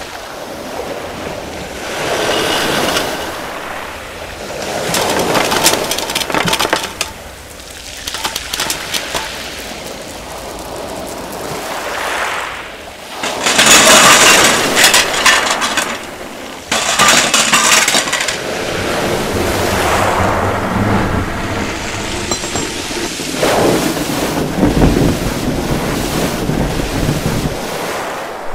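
Foley of a mass of household belongings (plastic toys, crockery, bubble wrap) sliding and clattering across wooden floors in a rushing, surf-like torrent. It comes in swells, with the loudest surges about halfway through and again a few seconds later.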